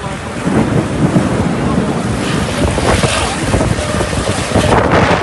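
Storm wind gusting hard and buffeting the microphone with a loud, rough rumble. It swells about half a second in and surges again around the middle.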